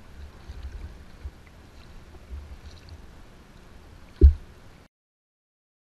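Kayak paddling heard from the boat: low muffled rumbling and thumps with faint light ticks, and one heavier low thump about four seconds in. The sound then cuts off abruptly.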